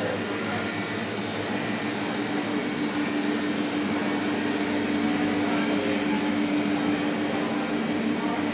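A steady engine or motor drone with a constant hum, getting slightly louder after a few seconds.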